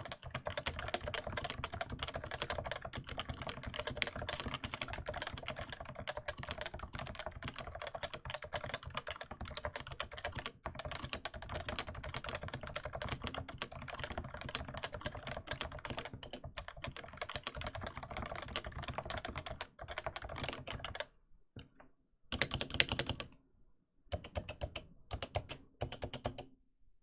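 Fast, continuous typing on a Topre Realforce 87U keyboard with 55 g electrostatic capacitive rubber-dome switches. About three quarters of the way through the typing stops, then comes back in two short spurts with pauses between them.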